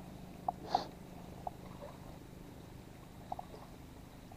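Low, steady hum of the boat's small gasoline engine running at idle, with a few short, light clicks over it, the sharpest just under a second in.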